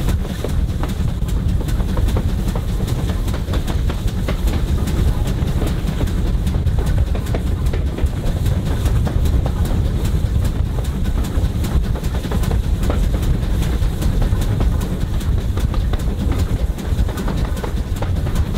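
Railway carriage running along the line: a steady low rumble with a scatter of small wheel-on-rail clicks.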